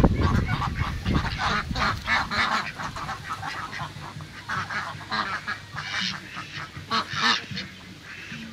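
Mixed flock of domestic ducks and Muscovy ducks calling: many short calls overlapping, one after another.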